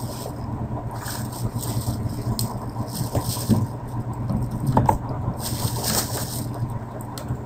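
Background noise of a desktop recording microphone: a steady low electrical hum with hiss, and a few scattered faint clicks and rustles.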